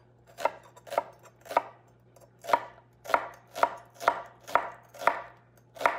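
Chef's knife slicing through an onion and striking a wooden cutting board: about ten sharp chops, roughly two a second, with a short pause about two seconds in.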